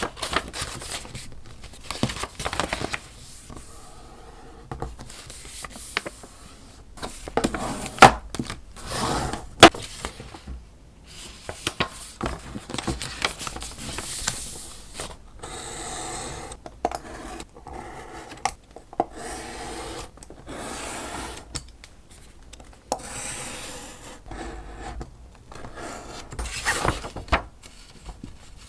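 Paper being handled to make an envelope: irregular rustling, rubbing and scraping, with scattered sharp taps, the two sharpest about eight and ten seconds in.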